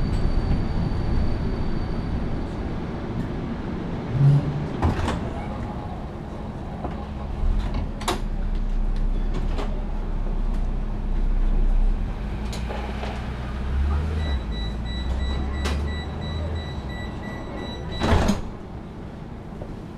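Interior of a Vienna tram standing at a stop, with a low rumble and scattered clicks and knocks. Near the end comes about four seconds of rapid, pulsed beeping, the door-closing warning, and then a loud thud as the sliding doors shut.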